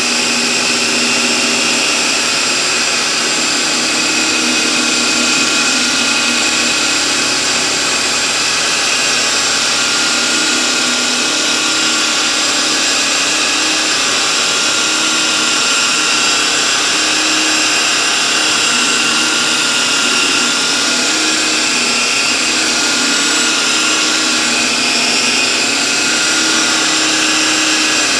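Rotary polisher running steadily at middle speed, buffing car paint through an orange foam pad with a steady whine over the hiss of the pad on the panel.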